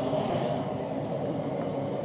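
Steady droning hum of running machinery in a blacksmith's forge shop, with a constant low whine, between bouts of hammering on the anvil; no hammer strikes fall.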